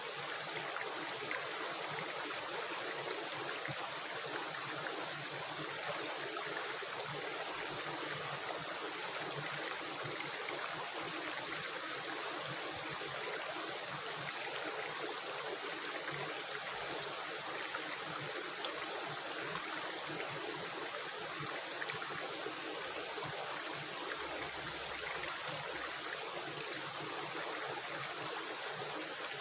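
Running river water rushing and gurgling steadily, an even wash of water noise with no break.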